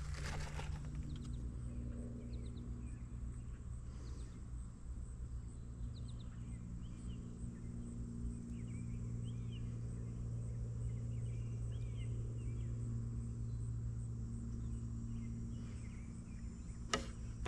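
Small birds chirping in short, scattered calls over a steady low hum, with one sharp click near the end.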